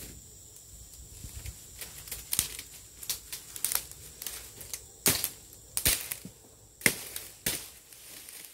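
Sharp, irregular clicks and rustles of fishing tackle being handled close by while a second rod is rigged, loudest about five and seven seconds in. A faint, steady, high-pitched insect whine runs underneath.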